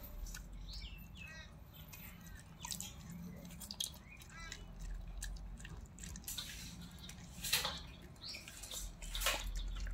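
A dog chewing a piece of chicken: irregular wet smacks and crunching clicks from its mouth, louder a couple of times near the end.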